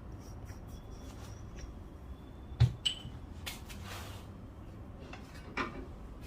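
Quiet handling sounds of espresso gear: a dull knock about two and a half seconds in, followed at once by a sharp click with a brief ring, and a softer knock near the end.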